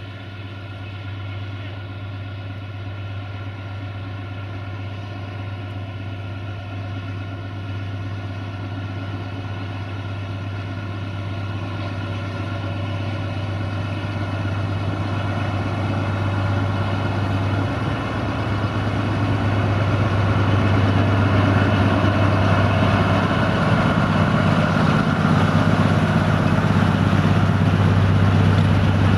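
LDH450 diesel-hydraulic shunting locomotive running at a steady engine note, growing louder as it approaches and passes. In the second half the rumble and clatter of the tank wagons rolling over the rails builds up and becomes the loudest sound near the end.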